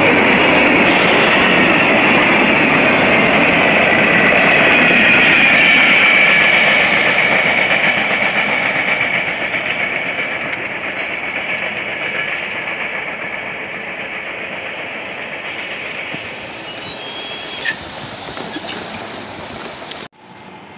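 Freight train of covered hopper cars rolling past on steel wheels, with a high wheel squeal over the rumble. The sound fades steadily from about seven seconds in as the end of the train moves away, with two sharp knocks near the end before it cuts off abruptly.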